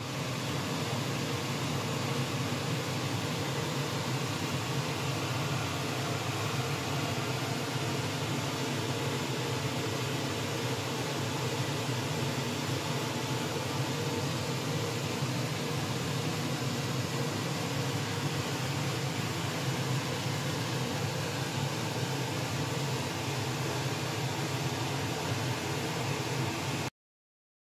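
Steady mechanical hum and hiss, like a fan or air conditioner running, that cuts off suddenly near the end.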